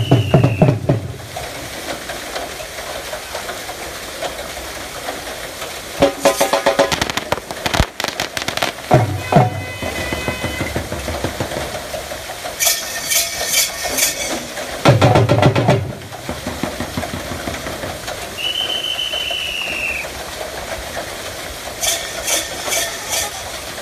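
Bull-driven Persian wheel (rehat) turning at a well: bursts of rattling clatter come round about every seven to nine seconds, three times, over a steady background noise. There are a few short loud low bursts, and a high whistle-like tone near the end.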